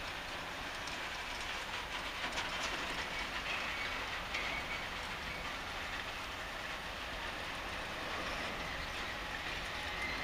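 Freight train of covered hopper wagons rolling past, the last wagon going away: a steady rumble of wheels on rails with some clicks over rail joints in the first few seconds.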